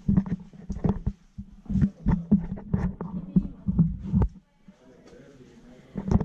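Handling noise on a handheld camera's microphone while walking: irregular low thumps and short rubbing knocks, which die down about four seconds in, with one more knock near the end.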